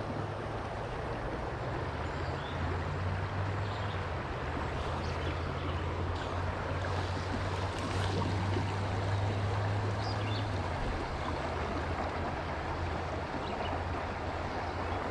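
Steady rush of flowing stream water, with a low rumble underneath that is stronger for several seconds in the middle.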